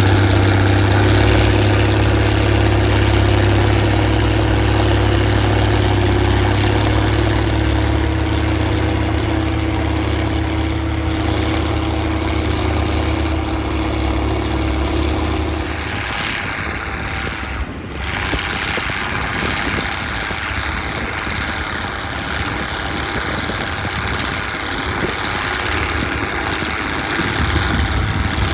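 Straight-piped Case IH 1056 XL tractor's six-cylinder diesel engine running loud and steady under ploughing load. A little over halfway through, its deep note drops away, leaving a rougher, noisier engine sound, and the deep note comes back near the end.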